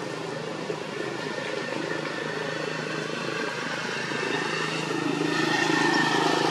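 A motor engine running steadily, growing louder from about five seconds in.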